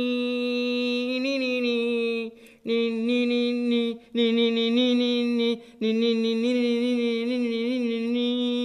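Wordless a cappella singing by one voice, holding long notes with a slight waver and breaking off briefly three times.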